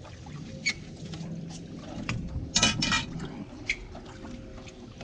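Water slapping and lapping against the boat's hull over a faint steady hum, with scattered small knocks and a louder noisy burst about two and a half seconds in.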